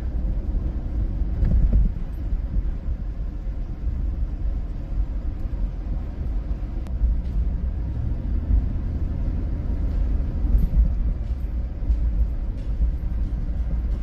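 Steady low rumble of a car driving along a snow-covered road: engine and tyre noise from the moving vehicle.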